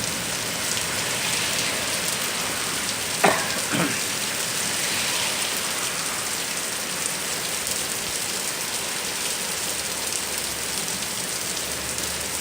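Heavy thunderstorm rain falling steadily on the porch and surroundings. About three seconds in, a brief pitched sound falls in pitch twice in quick succession.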